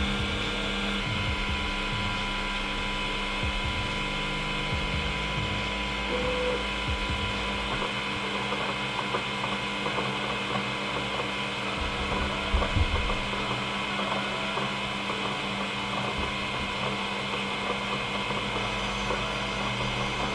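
Elegoo Centauri Carbon 3D printer running its first-power-on self-check: a steady machine hum with several held tones as its stepper motors drive the bed and print head, the motor sound shifting as moves start and stop. There are a couple of light knocks about two thirds of the way through.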